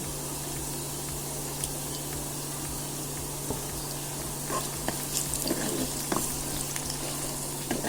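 Sliced onions and whole spices (bay leaf, cinnamon, cardamom) frying in hot oil in a pan, a steady sizzle, with a few light clicks in the second half and a steady low hum underneath.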